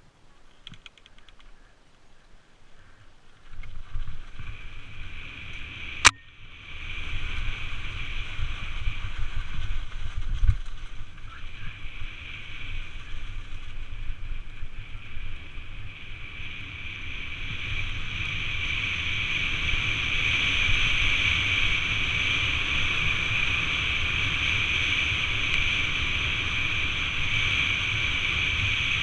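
Mountain bike ridden fast over grass and a dirt track, heard from a helmet-mounted camera: wind buffeting the microphone and a steady rushing whir of the tyres. It builds after a quiet first few seconds and gets louder again in the second half. A single sharp click comes about six seconds in.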